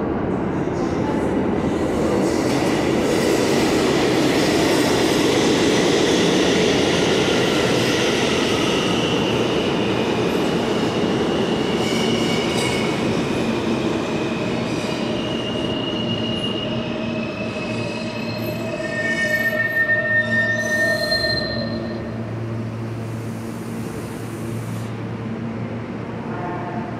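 New York City subway train running out of sight in the station tunnel, its steel wheels squealing at several shifting high pitches over the running noise. The running noise is loudest in the first few seconds and eases off, with a flurry of squeals about two-thirds of the way through.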